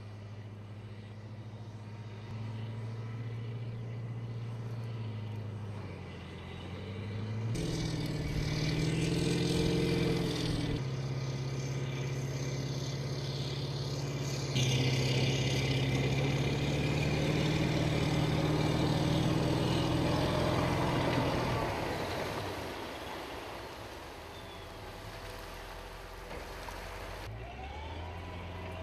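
AAV7 amphibious assault vehicles' diesel engines running as the vehicles swim through the water and come ashore: a steady, low engine drone that grows louder for a stretch in the middle.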